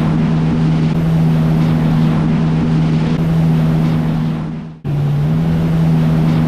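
Jet ski engine running with a steady drone, over the rush of water and spray. The sound fades away and drops out briefly about five seconds in, then cuts straight back in.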